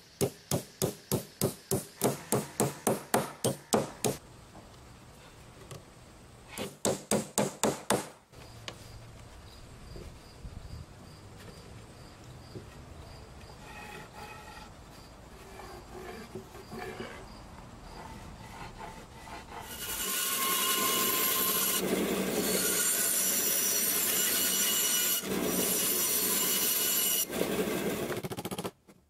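Hammer driving nails into a wooden chair frame: a fast run of blows, about four a second, then a shorter run of blows a few seconds later. Later a loud steady noise lasting several seconds.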